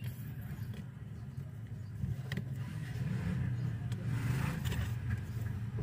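A steady low background rumble with a few light clicks as the plastic Bluetooth speaker casing is handled.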